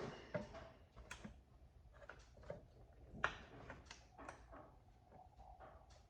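Faint hand-handling sounds of a rubber hose and plastic engine-bay parts being worked into place: scattered small clicks and rustling, with a sharper click about three seconds in.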